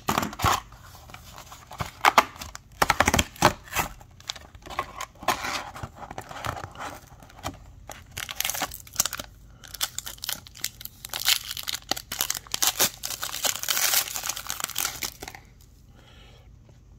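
Upper Deck hockey card pack wrapper being crinkled and torn open by hand: irregular crackling rustles and rips that stop about a second and a half before the end.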